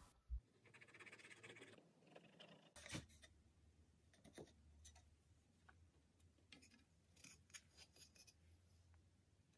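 Faint wood-glue handling sounds: the nozzle of a glue squeeze bottle rubbing and scraping along mitred mahogany box sides for a couple of seconds. Then scattered small wooden taps and clicks as the taped sides are lifted and folded together.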